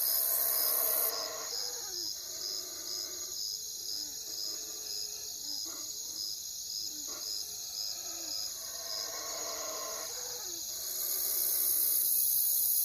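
Night ambience of crickets trilling in a steady, even pulse, with owl calls over it: a longer call near the start and again about nine seconds in, and short falling hoots between.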